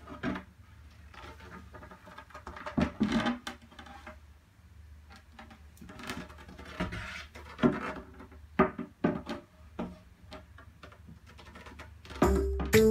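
Light handling noise: scattered soft knocks, scrapes and rubs over a low steady hum. Music starts near the end.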